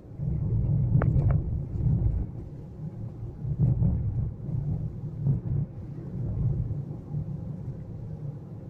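Low, uneven rumble of a car driving along a town street, heard from inside the car, with a couple of faint knocks about a second in.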